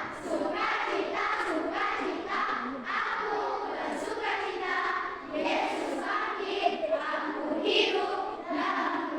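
A group of voices singing together in unison, in short rhythmic syllables about twice a second.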